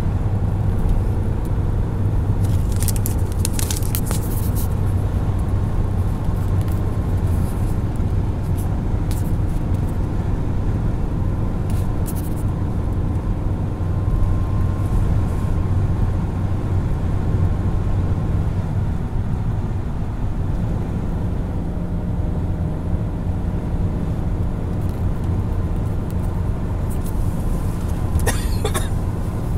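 Steady drone of a car driving at road speed, heard inside the cabin: low engine and tyre noise. A few short scratchy noises come and go, at around 3 to 4 seconds, 12 seconds and 28 to 29 seconds.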